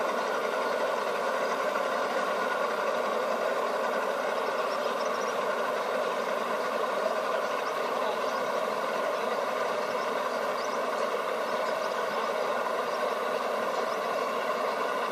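Outboard boat motors idling at a steady, even pitch.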